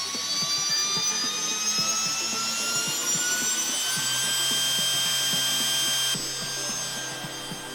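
Fuji Paudal atomizer hammer mill spinning up: a whine that rises steadily in pitch for about four seconds and then holds, over a light rattle.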